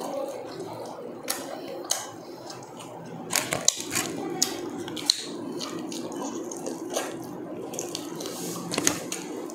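Close-miked eating sounds: wet chewing and lip smacking with many sharp clicks and crackles, from people eating roast chicken and pork with their hands.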